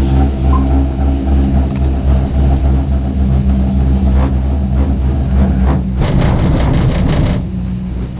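Steady low mechanical hum of a moving vehicle. About six seconds in, a rapid rattling clatter lasts for over a second.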